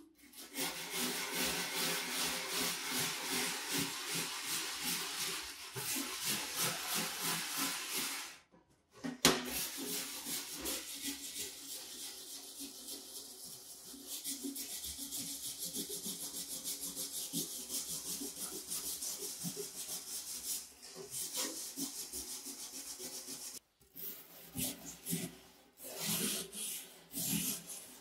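Steel-bristle hand wire brush scrubbing loose rust off an antique hand saw's steel blade, a rough scraping in rapid back-and-forth strokes, about three a second. It stops briefly twice.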